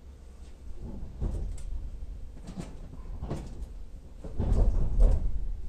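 Running noise inside a JR 115-series electric train car as it pulls away: a low rumble with irregular clunks and knocks, loudest about four and a half to five seconds in.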